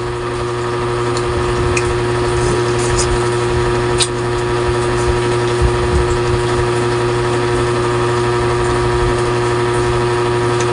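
A steady machine hum made of several even tones, with a few faint clicks, the sharpest about four seconds in.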